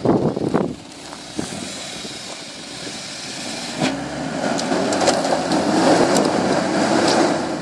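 Mitsubishi Pajero 2.8-litre engine working under load as the 4x4 drives off-road, swelling louder about four seconds in, with scattered crackles over it. A brief clatter comes right at the start.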